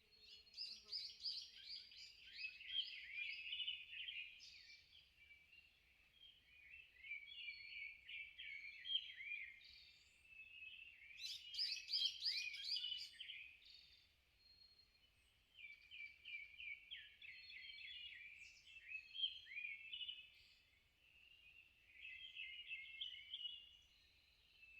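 Wild songbirds singing in a forest: bursts of quick, high chirping and warbling notes, each a few seconds long, repeating with short pauses between them.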